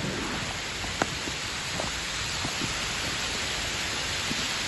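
Heavy rain falling steadily: a dense, even hiss, with scattered sharp taps of drops and a louder tap about a second in.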